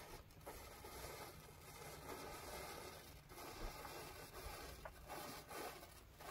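Matchstick heads flaring one after another as the flame runs along a chain of matchsticks: a faint, continuous rasping burn with a few small clicks.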